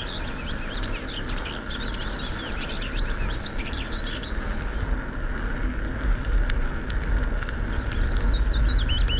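Bicycle tyres rolling with a steady low rumble and hiss, while birds chirp rapidly over it for the first four seconds or so and again near the end.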